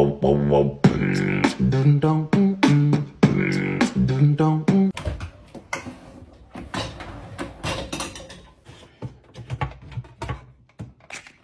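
Vocal music with beatbox-style percussion for about five seconds. It gives way to scattered clicks and knocks that fade out near the end.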